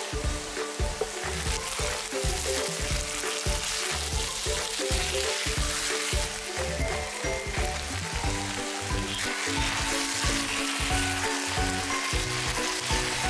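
Minced beef and onion sizzling in a frying pan as it is stirred and pushed about with a spatula, under background music with a pulsing beat.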